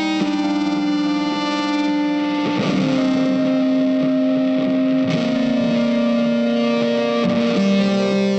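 Background music: long held notes that change pitch every second or two.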